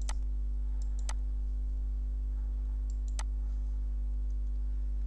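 Computer mouse clicking a few times, near the start, about a second in and again about three seconds in, over a steady low electrical hum.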